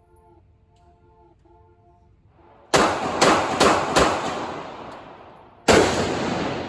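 Gunshots on a shooting range: four quick shots about half a second apart, then a fifth about a second and a half later, each trailing off in a long echo.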